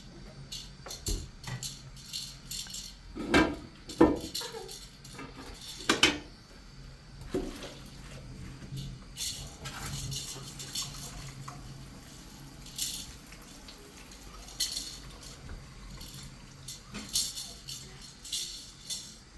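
Irregular clinks and knocks of objects being handled, with a few louder thumps in the first six seconds, over a faint steady hum.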